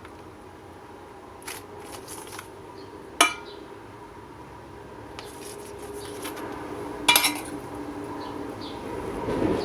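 Metal kitchen utensils and cookware clinking and knocking, with two sharp, ringing metallic clanks about three seconds in and about seven seconds in.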